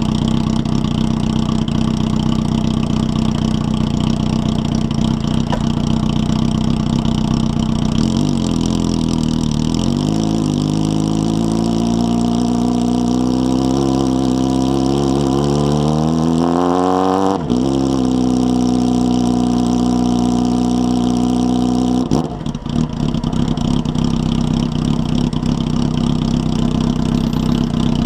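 Honda Hornet's carbureted inline-four engine through a 4-into-1 exhaust, running under way. It holds a steady note, then revs up in rising pitch for several seconds until a sudden drop as the throttle closes. It settles to a steady note again, with a brief dip later on.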